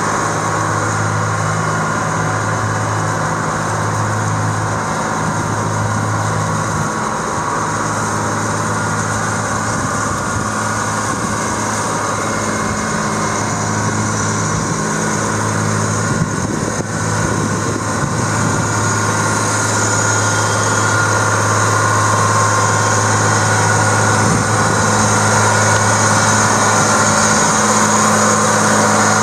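John Deere 7220 tractor's PowerTech 6.8-litre six-cylinder diesel running steadily, with a brief unsteady moment a little past halfway and a slight rise in loudness toward the end.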